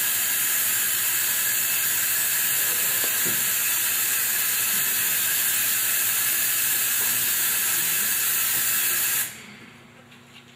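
A loud, steady hiss like white noise, strongest in the high range, that cuts off abruptly about nine seconds in.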